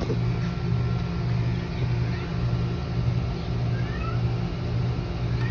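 A steady low mechanical hum that pulses slightly, with a few faint short rising chirps near the end.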